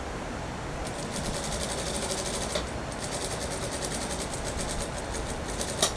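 Industrial sewing machine stitching a suit sleeve, a fast even run of needle strokes, quieter for about the first second, then steady. It ends in a sharp click.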